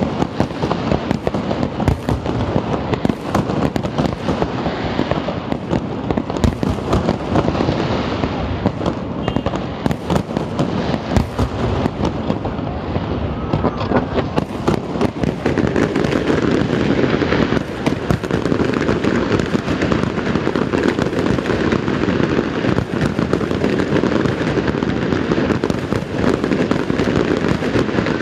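Aerial fireworks display: a dense, unbroken barrage of shell bursts and crackle, growing thicker and more even from about halfway through.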